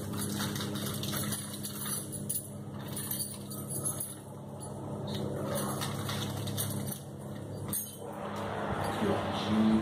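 Small plastic snap retention clips clicking and rattling as they are picked through by hand, over a steady low hum.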